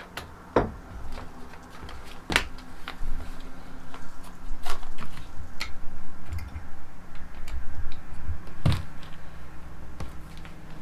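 Scattered clicks and knocks of small metal engine parts and hand tools being handled, with a few sharper taps, over a faint steady hum.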